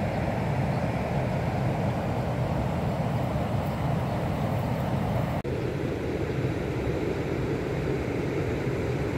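Steady rushing of the river Borzhava's water spilling through the weir sluices. There is a brief drop at a cut about five seconds in, after which the rush is a little duller.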